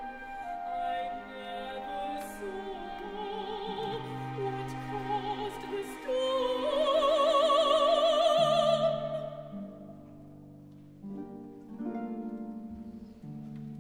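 Live classical oratorio performance: a solo operatic voice sings with wide vibrato over a chamber orchestra, rising to a loud held high note about halfway through. The music then drops to a quieter orchestral passage.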